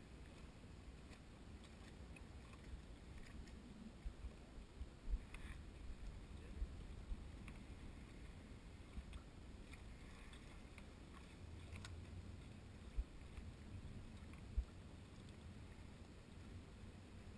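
Faint low rumble of wind and small waves lapping at a wooden lakeside dock, broken by a few dull knocks, the sharpest about five seconds in and again near fifteen seconds.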